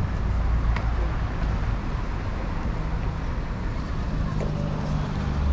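Street traffic: a motor vehicle's engine running close by over a steady rumble, its low hum growing stronger in the last second or two.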